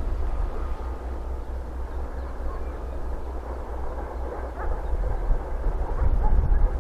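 2M62U two-section diesel locomotive's two-stroke diesel engines running under load as it hauls a freight train, a low, steady engine rumble that grows louder over the last two seconds as it draws closer.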